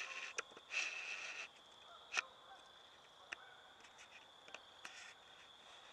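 Woodland ambience: two harsh, buzzy bird calls in the first second and a half, a few sharp clicks scattered through the rest, and a steady high-pitched whine underneath.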